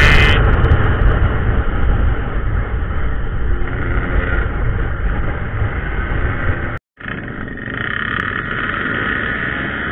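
Yamaha RX-King single-cylinder two-stroke motorcycle engine running while under way, heard from the bike itself under heavy low wind rumble. The sound cuts out for an instant about seven seconds in, then comes back steadier as the bike rolls slowly among other motorcycles.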